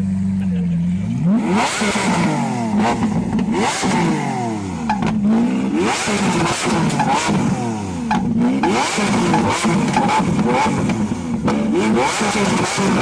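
A loud-exhaust engine idling steadily, then revved hard again and again from about a second in, its pitch climbing and dropping roughly once a second.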